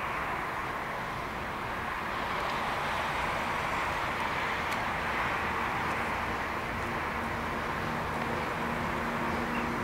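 Freight train of Talbot hopper wagons hauled by an ET22 electric locomotive running past: a steady rolling noise of wheels on rail that slowly grows louder. A low steady hum joins about seven seconds in.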